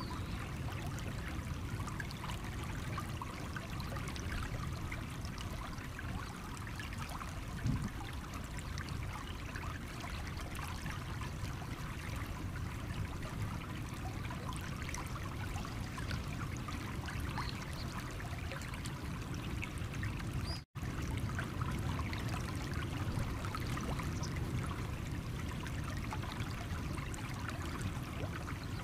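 Small stream running over stones: steady trickling and burbling water. The sound drops out completely for a split second about two-thirds of the way through, then resumes.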